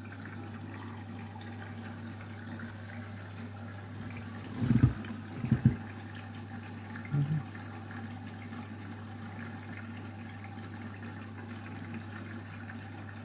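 Candy washing machine's drain pump humming steadily with water running through it after the spin. A few short knocks sound about halfway through.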